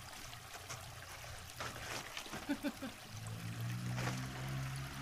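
River water flowing steadily. A man laughs briefly a little past halfway, and a low steady drone comes in about three seconds in.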